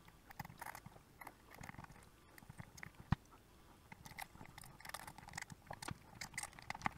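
Faint, irregular crackling and ticking as a soldering iron melts low-melt solder into flux-coated chip pins on a circuit board, with one sharper tick about three seconds in.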